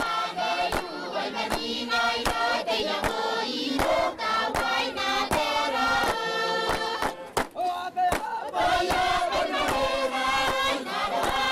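Group of voices singing a Kiribati dance song in chorus, kept in time by sharp, even beats about two or three a second. There is a brief break in the singing about seven seconds in.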